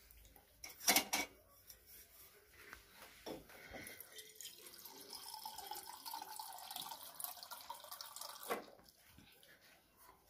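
Water running from the tap of a countertop water purifier into a glass for about five seconds, with knocks before it and a sharp knock as it stops.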